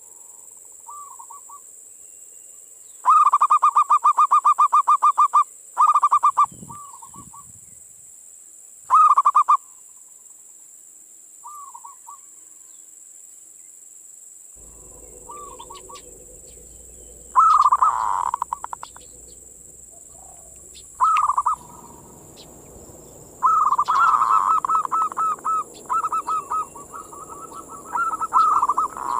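Zebra dove (perkutut) cooing its manggung song: phrases of rapid, evenly repeated notes at a steady pitch, each lasting one to two seconds, with pauses between and a longer run of phrases near the end.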